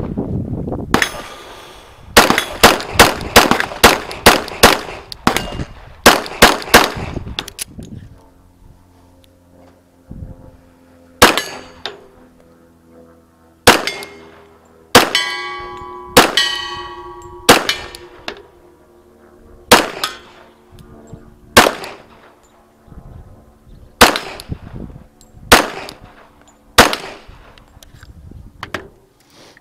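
Glock 41 pistol firing .45 ACP: a fast string of about a dozen shots, then single shots every second or two. Hit steel plate targets ring out after some of the shots.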